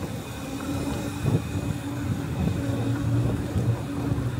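Riding noise on an e-bike: a continuous low rumble of wind and road, with a steady low hum that comes and goes, and a single knock about a second in.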